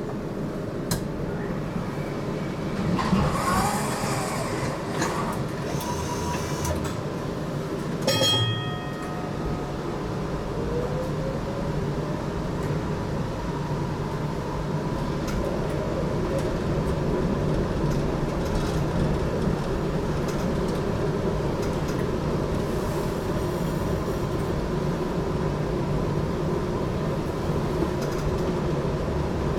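GTL8 tram running on rails, heard from inside, with a steady rumble of wheels and running gear. A short ringing signal sounds about eight seconds in. Soon after, a rising motor whine and a slowly swelling rumble show the tram gathering speed.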